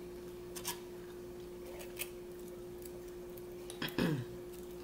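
A few faint clicks of a fork against a plate while eating, over a steady hum. A brief vocal murmur about four seconds in.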